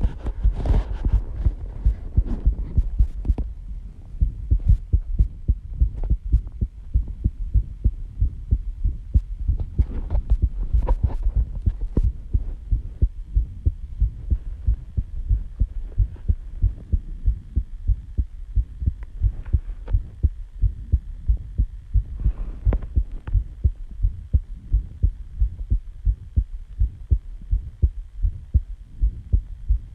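A person's heartbeat at rest just after waking, picked up close: a steady, even rhythm of low thuds. Sharper crackles sit over it in the first few seconds and again about ten to twelve seconds in.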